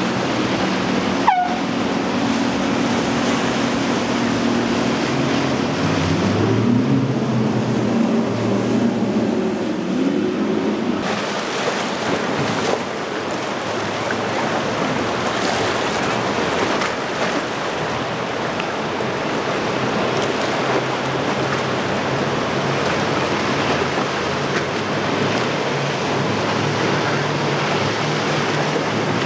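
Twin Yamaha 250 hp outboard motors on a Grady-White cruiser running under way with waves around the hull, their pitch shifting between about 6 and 11 seconds in, with a sharp click about a second in. After about 11 seconds the sound turns to a speeding motorboat's engine and the rush of spray and wake off its hull.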